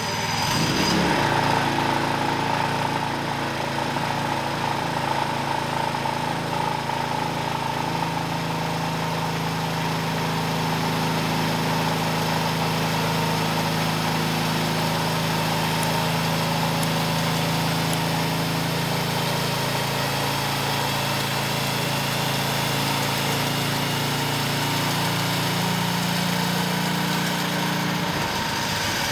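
Predator Ghost 212cc single-cylinder four-stroke engine running steadily on a dyno, on the break-in run of a never-before-run engine. Its speed steps up a little about two-thirds of the way through.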